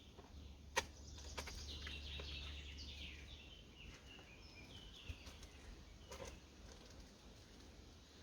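A songbird singing a phrase of quick short notes that step downward in pitch, with a sharp knock just before it and another about six seconds in.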